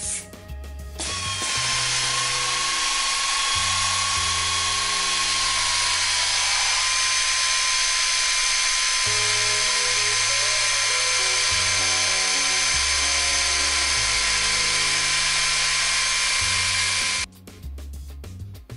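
Desoutter SETITEC pneumatic advanced drilling unit running and drilling into aluminium plate: a loud, steady whine with hiss that starts about a second in and cuts off suddenly near the end. Background music with a bass line plays underneath.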